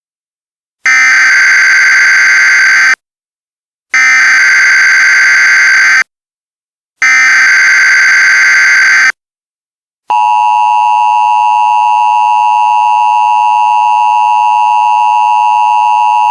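Emergency Alert System tones: three loud bursts of SAME header data, each a harsh, screeching digital warble about two seconds long with about a second's gap between them. About ten seconds in, the steady two-tone EAS attention signal starts and holds.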